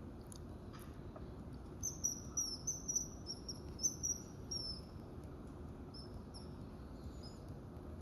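Common kingfisher calling: a quick run of about ten high, thin notes, each dipping slightly in pitch, starting about two seconds in, then a few more near the end. A steady low rumble runs underneath.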